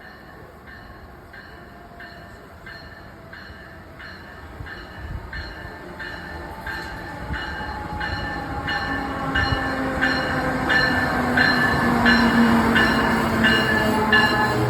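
A passenger train approaching, growing steadily louder, with a bell ringing about three times a second the whole time.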